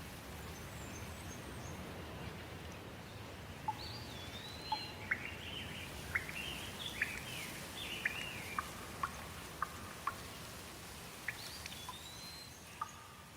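Steady rain, with songbirds calling over it from about four seconds in: a run of whistled glides and short sharp chirps.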